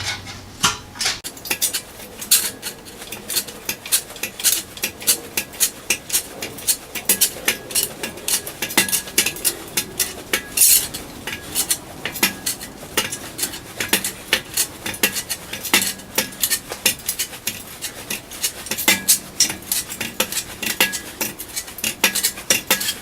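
Sheet-metal shrinker working a bent steel flange in small bites: repeated sharp metallic clacks, a few a second, as the jaws grip and shrink the metal to put a curve into it.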